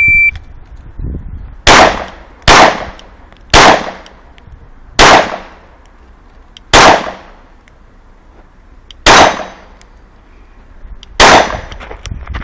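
Shot timer beep at the very start, then seven Glock pistol shots fired at an uneven pace, one to two seconds apart, each a sharp crack with a short echo.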